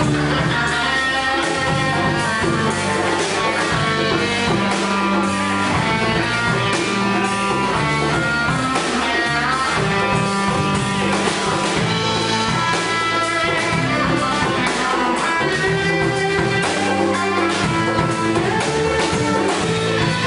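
A live instrumental band playing: drum kit with electric guitar and bass, no singing.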